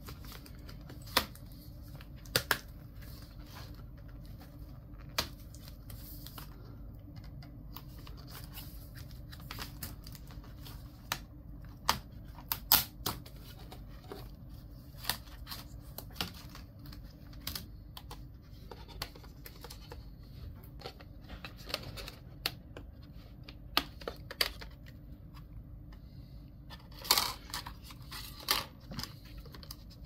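Irregular small clicks and taps of a Dell Precision 7760 laptop being worked on by hand, its casing and parts handled, over a low steady hum. A quick cluster of louder clicks comes near the end.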